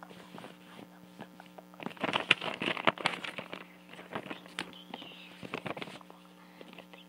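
A sheet of paper handled close to the microphone: rustling and crinkling with scattered finger taps and clicks on it, busiest about two to three seconds in, over a steady electrical hum.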